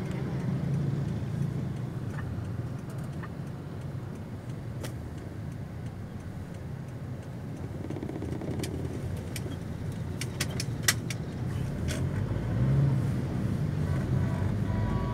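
Steady low rumble of street traffic and motor vehicle engines, heard from a moving vehicle. About two-thirds of the way through comes a short run of sharp clicks.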